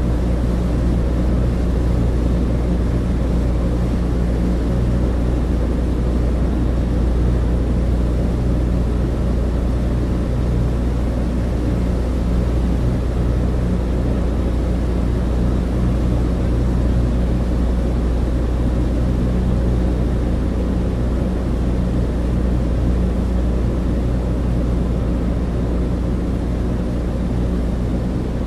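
Douglas DC-3 cabin in flight: a steady low drone from its twin radial piston engines and propellers, with a hiss of airflow over it.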